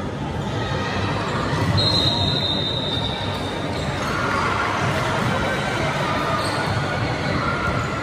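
Basketball game sounds: a ball bouncing amid crowd chatter. About two seconds in, a single high steady tone lasts about two seconds.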